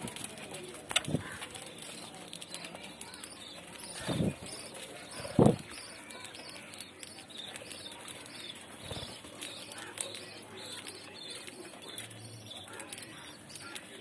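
Budgerigars fluttering and flapping their wings right against the microphone while chattering, with a few sharp wing-beat thumps, the loudest about five seconds in.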